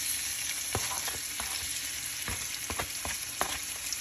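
Raw chicken pieces sizzling as they hit hot bacon grease in a frying pan, a steady hiss broken by scattered sharp clicks and pops as the pieces are pushed around with a fork.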